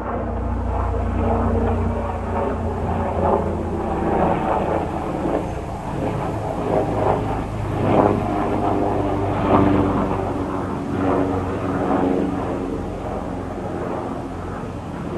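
Leonardo AW139 twin-turbine helicopter flying overhead: a continuous drone of rotors and turbines with steady low tones, swelling and easing a little as it passes.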